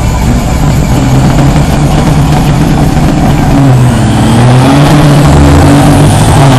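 Big diesel engines of two loaded log trucks revving hard under load as they pull away side by side in a drag race, the engine pitch dipping and climbing again about four seconds in.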